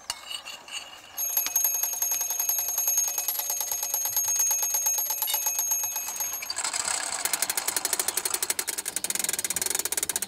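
Clockwork spit-jack of a wood-fired rotisserie ticking fast and evenly as it turns the spit, with a thin high ring over the ticks. About six and a half seconds in, this gives way to a denser, faster ratcheting clatter as the mechanism is wound by hand.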